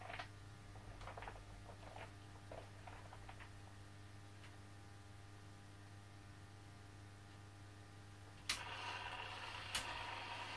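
Steady electrical hum from a 0 gauge model railway layout, with a few light clicks in the first few seconds. About eight seconds in, a sharp click brings in a steady hiss, and a second sharp click follows a second later.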